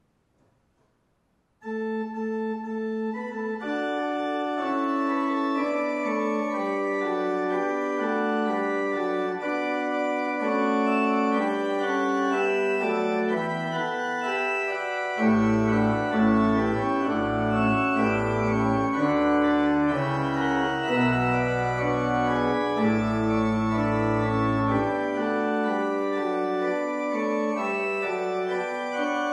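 Church pipe organ playing the closing voluntary, coming in about two seconds in with held chords; a deep pedal bass joins about halfway through and drops out a few seconds before the end.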